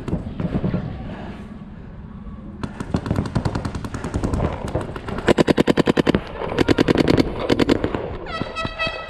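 Paintball markers firing rapid strings of shots, about a dozen a second, in several bursts, with the loudest, densest strings past the middle. A short held tone sounds near the end.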